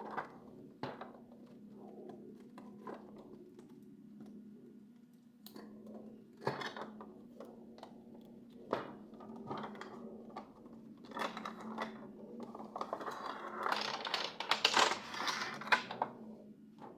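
Hands unboxing toy train cars: scattered clicks and taps of small plastic parts and packaging, with a dense stretch of rustling and crinkling near the end, over a steady low hum.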